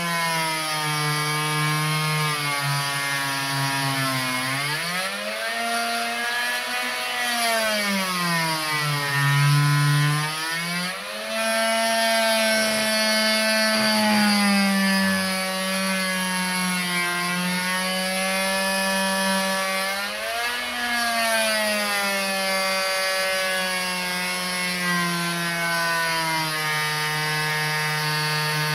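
Oscillating multi-tool buzzing as its plunge blade cuts through the fiberglass of a boat transom around the drain fitting. Its pitch rises and falls throughout.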